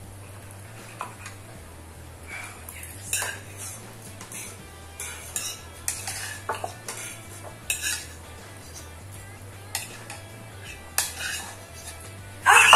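Eating utensils clinking and scraping against bowls in short, irregular clicks as noodles are eaten fast, over a steady low hum. A loud voice cuts in near the end.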